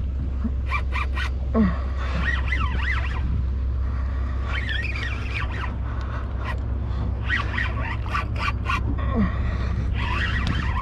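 Spinning reel cranked in spells against a fish on a bent rod, with quick clicks and short whining glides from the reel and line. Under it runs the steady low hum of the boat's engine.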